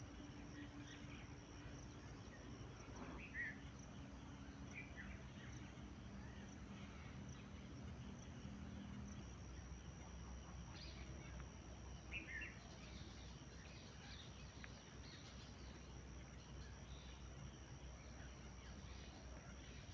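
Faint, scattered bird chirps over a steady background hiss and low rumble, with a thin steady high tone throughout; the clearest chirps come about three seconds in and again about twelve seconds in.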